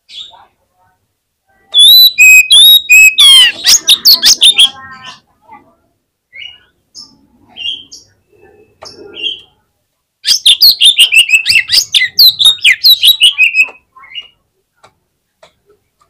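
Male oriental magpie-robin (kacer) singing its aggressive 'fighter' song, the kind used to provoke other magpie-robins. There are two loud bursts of rapid whistled phrases: the first has clear held whistles and a fast falling sweep, the second about ten seconds in is a run of quick falling notes. Single short calls are scattered between the bursts.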